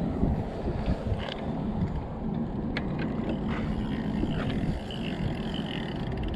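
Wind buffeting the microphone: a low, rough rumble throughout, with a few light clicks and knocks from fishing gear being handled.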